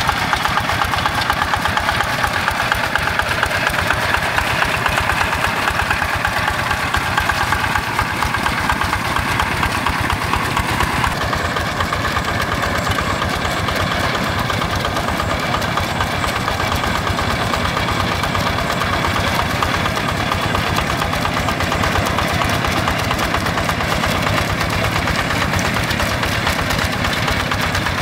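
Single-cylinder Yanmar diesel engine of a Quick G1000 walk-behind hand tractor running steadily with a fast, even firing beat as the tractor pulls through a flooded rice paddy. Its tone shifts slightly about eleven seconds in.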